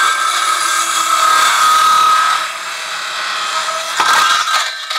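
Circular saw running and cutting across a 1x4 board with the blade set to a 45-degree bevel; the motor spins down near the end.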